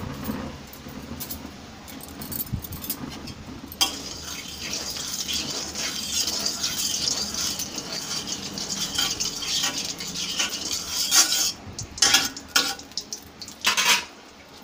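Hot mustard oil sizzling in a black iron kadai while a metal spatula stirs and scrapes against the pan. The sizzle starts suddenly about four seconds in, and sharp scrapes and clinks of the spatula on the iron come near the end.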